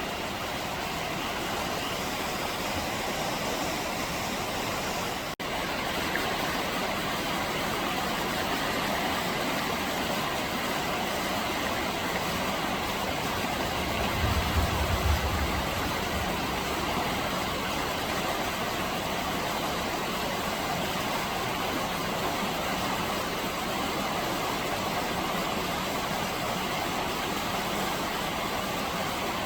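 Steady rush of a mountain river flowing over rocks, with a brief low rumble about halfway through.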